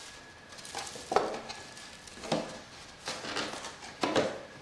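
Cardboard boxes being handled on a table: a handful of short knocks and scrapes as boxes are set down, shifted and picked up, the loudest about a second in and near the end.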